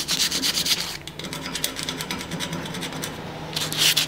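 Abrasive paper rubbed by hand back and forth over the face of a 52100 steel bar to clean it, making quick scratching strokes. The strokes ease off through the middle and pick up again near the end, over a steady low hum.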